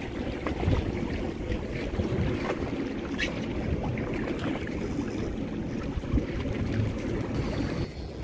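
Boat running across choppy sea: water rushing and slapping along the hull under a steady drone from the Yamaha outboard, with wind buffeting the microphone.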